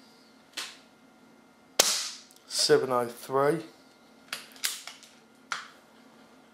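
A single shot from a silenced BSA R-10 .177 pre-charged pneumatic air rifle, a sharp crack about two seconds in, fired through a chronograph. A short low voice follows, and a few light clicks come before and after the shot.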